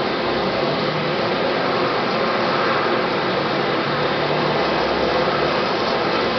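Sikorsky HH-60J Jayhawk's twin turboshaft engines running at ground idle on the helipad, a steady rush of turbine noise with a faint high whine.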